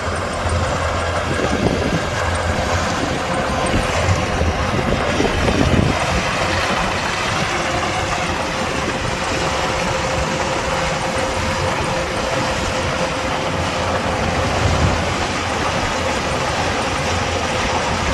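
Kubota DC-105X combine harvester running steadily: a continuous machine drone with a constant hum on top.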